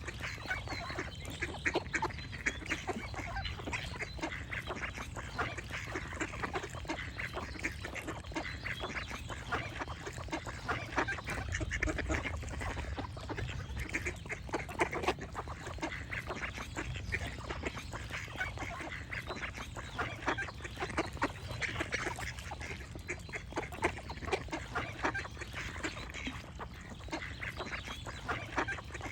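A flock of ducks quacking continually, with many short overlapping calls, over a steady low rumble.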